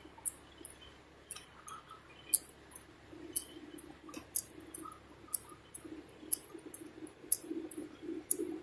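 Sharp clicks about once a second, with fainter irregular clicks between them, over a low hum that grows louder about three seconds in.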